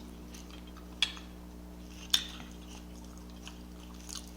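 Two sharp clinks of cutlery against a dish, about a second apart, with a few faint ticks of eating in between, over a steady low hum.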